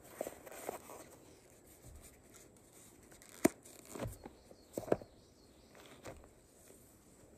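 Handling noises from a white foam block with line wound on it being worked in gloved hands: soft rustling and scraping, with two sharp clicks, one about three and a half seconds in and one about five seconds in.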